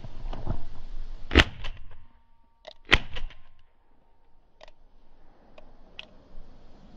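Two shotgun shots about a second and a half apart, fired at a partridge in flight, followed by a few light clicks.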